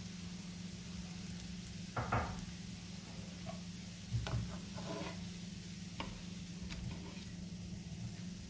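A crepe frying in a pan with a faint steady sizzle. A wooden spatula knocks and scrapes against the pan a few times, with the loudest knocks about two and four seconds in, as it is worked under the edge of the crepe to turn it.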